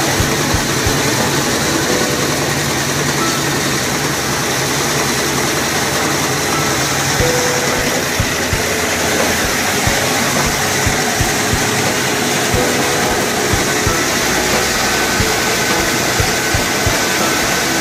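Mini rice mill machinery running: a continuous, loud mechanical din of electric motors, belt drives and a vibrating grain sieve, with frequent irregular low thumps.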